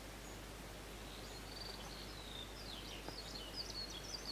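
Small songbird singing: a run of quick, high chirps and sweeping notes starting about a second in, over a faint steady background hiss.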